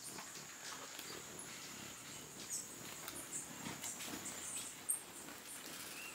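Hummingbirds at a feeder giving many short, very high chip and squeak calls, scattered irregularly, over a thin steady high whine.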